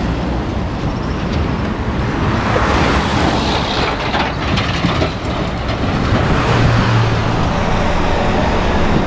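Steady low rumble and road noise of a moving vehicle, with no single pass-by standing out.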